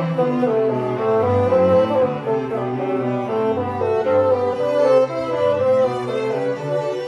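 Bassoon quartet, with bassoon, violin, viola and cello, playing a lively classical allegro of quickly moving notes, the bowed strings most prominent.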